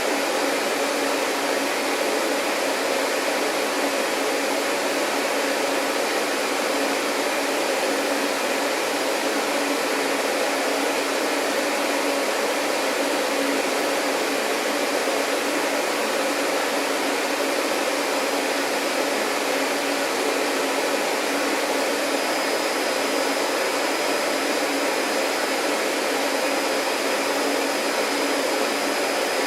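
Vacuum cleaner running steadily: an even rushing whir of the motor and airflow with a steady low hum. A faint high whine joins in after about twenty seconds.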